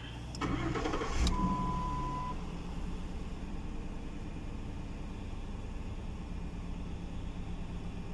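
Ford Crown Victoria's 4.6-litre V8 cranked over and catching about a second in, with a short steady beep, then settling into a steady idle. This is the first start after the intake manifold and its gaskets were replaced.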